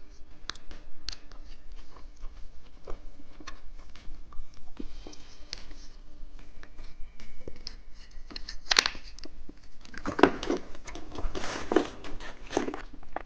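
Candy packaging being torn open and crinkled: a string of small clicks and rustles, with louder crinkling bursts in the last few seconds.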